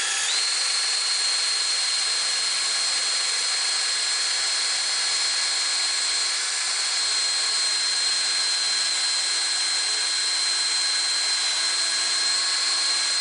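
Electric drill with a stepped pocket-hole bit boring slowly through a knot in 3/4-inch wood held in a pocket hole jig. It runs continuously with a high whine that rises as it comes up to speed at the start, then holds steady.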